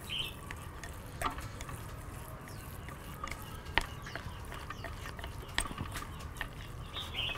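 Wooden chopsticks and a metal spoon stirring a moist mash of potato, sausage, carrot and egg in a glass bowl: soft squelching with a few sharp clicks of utensils against the glass.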